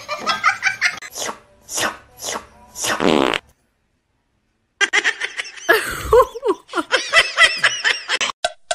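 Short bursts of laughter, then a buzzing fart noise about three seconds in. After a second of silence come bending, voice-like sounds, and near the end a quick run of bell-like ringing ticks begins.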